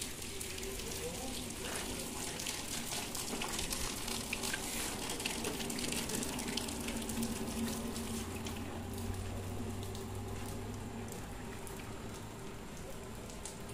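Steady crackling hiss with many fine ticks and a faint low hum underneath.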